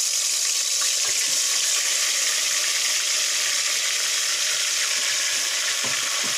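Marinated chicken pieces sizzling in hot mustard oil in a pot: a steady, even frying hiss.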